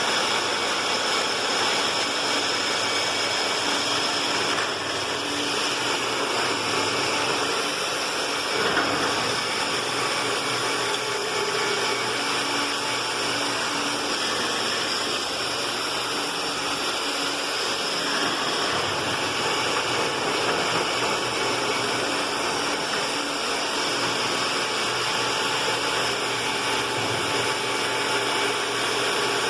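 Concrete drilling machine running steadily as it bores into concrete, a steady high motor whine over a continuous grinding noise.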